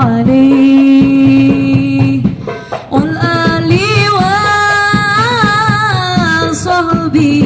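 A woman singing a sholawat devotional song: she holds one long note, drops out briefly about two and a half seconds in, then sings a higher, ornamented phrase with vibrato, over drum accompaniment.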